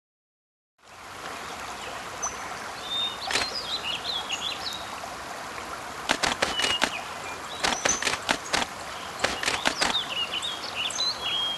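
Birds chirping over a steady rushing hiss, with sharp clicks now and then; the sound starts about a second in, after silence.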